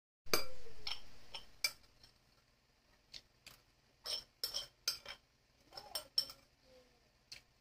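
Spoons and bowls clinking as dishes are gathered up after a meal: a louder clatter just after the start, then scattered short clinks and scrapes of a spoon against a bowl.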